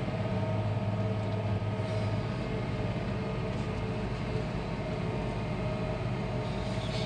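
Six-litre AGCO diesel engine of a Challenger loader tractor heard from inside the cab, running steadily under heavy load while pulling a soil finisher, lugged down to about 1800 rpm on a hill.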